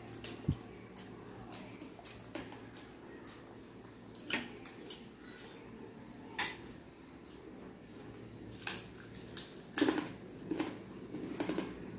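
Sparse, light clinks of metal spoons against ceramic bowls of vinegar dipping sauce, about half a dozen spread out, with quiet eating between them.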